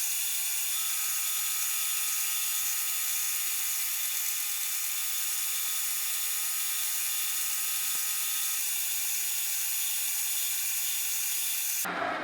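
Metal lathe running steadily with a high whine, taking a taper-turning pass on a metal shaft. Near the end the sound drops off abruptly and a falling whine follows as the machine winds down.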